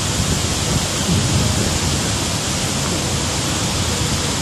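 Water pouring down a hydroelectric dam's spillway: a steady, unbroken rush of falling water.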